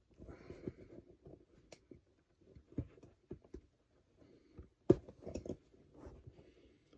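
Hand-work noise from prying hog rings open on a car seat cover with needle-nose pliers: scattered small clicks and rustling of the fabric cover against the foam, with one sharp metallic click just before five seconds in.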